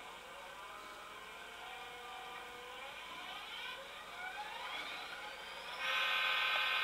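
Tsunami sound decoder in an HO-scale Athearn SD45T-2 model locomotive, played through the model's small speaker. The diesel engine sound rises in pitch as it revs up, then a horn sounds as a louder steady chord about six seconds in.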